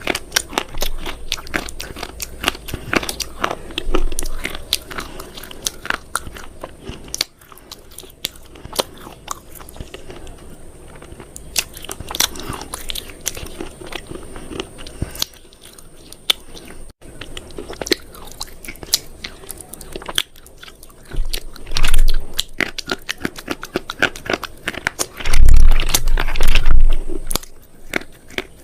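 Close-up crunching and chewing: dense crackling crunches go on throughout, with a few heavier low thumps about two-thirds of the way in and again near the end.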